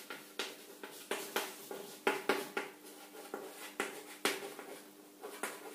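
Chalk tapping and scratching on a chalkboard as words are written: a run of sharp, irregular taps, a few each second.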